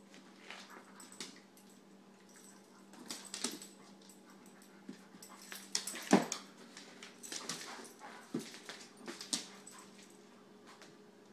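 Airedale terrier whimpering and yipping in play, with scattered sharp clicks of claws and paws on a wooden floor and one louder knock about six seconds in.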